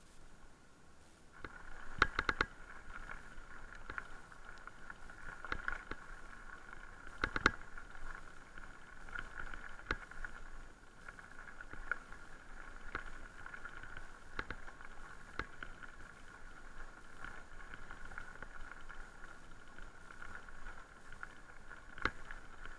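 Haibike Sduro FullSeven LT electric mountain bike being ridden over a rough lane and onto gravel: a steady hum sets in about a second and a half in, under frequent sharp clicks and rattling knocks as the bike jolts over the surface, the loudest near two and seven and a half seconds in.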